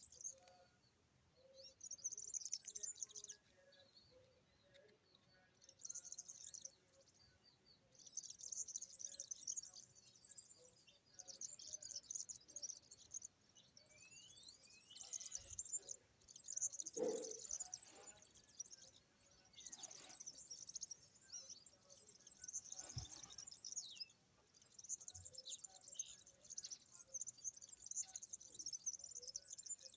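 Small birds chirping in repeated high-pitched bursts, with a couple of louder calls partway through.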